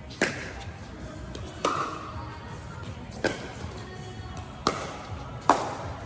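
Pickleball paddles hitting a plastic pickleball back and forth in a rally: five sharp pops, about a second and a half apart, the last two coming quicker.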